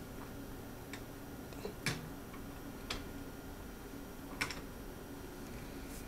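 Steady low hum of a desktop computer running through its boot screen, with four sharp clicks about a second apart, the loudest about two seconds in.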